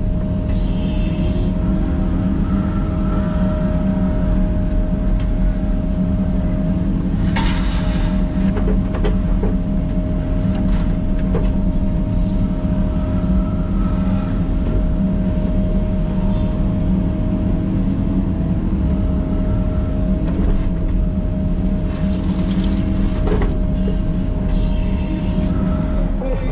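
Cat 308E mini excavator's diesel engine running steadily under working load, heard from inside the cab, with a steady thin whine over the drone. Short hisses come about a second in and again near the end.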